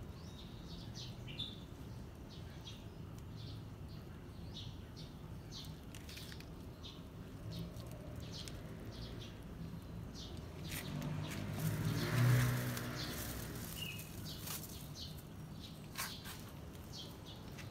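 Small birds chirping in short, scattered high calls throughout, over a low steady background rumble. About two-thirds through, a passing motor vehicle swells and fades, the loudest sound.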